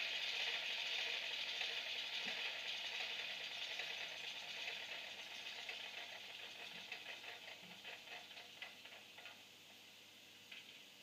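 Sound decoder's diesel-engine sound for an SBB Bm 6/6 locomotive, played through the model's small speaker, dying away as the engine is shut down: a hissing clatter that fades steadily, its ticks thinning out and stopping, with one last click near the end.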